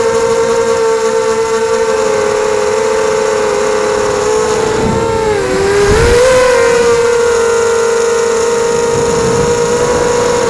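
ZMR 250 racing quadcopter's brushless motors and propellers whining, heard from the camera mounted on the drone. The pitch dips about five seconds in and rises again as the throttle changes, with a brief low rumble around six seconds.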